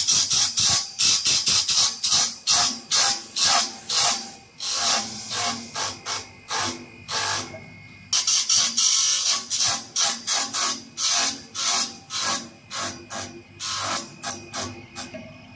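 Abrasive grinding wheel grinding the steel of a band saw blade on a blade welding and finishing machine: short harsh grinding bursts, about two a second. The bursts stop for about half a second around the middle, then resume and thin out near the end.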